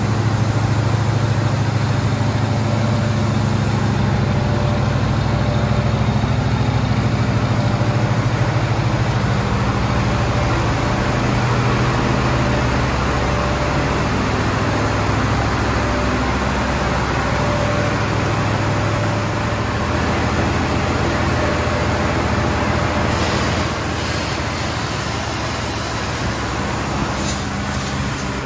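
1974 AMC Javelin engine idling steadily, its exhaust running through turbo mufflers. A high hiss joins for the last few seconds.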